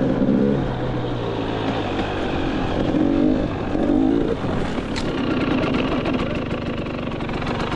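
Enduro motorcycle engine revving up and down as the bike is ridden, then a sharp knock about five seconds in as the bike tips over onto its side, after which the engine runs on more steadily at low revs.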